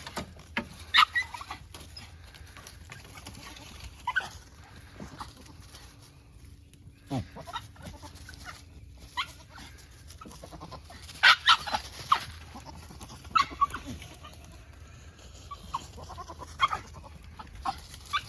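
Farm animals calling in short, scattered bursts over a steady background, with one falling call about seven seconds in and a cluster of loud calls around eleven to thirteen seconds in.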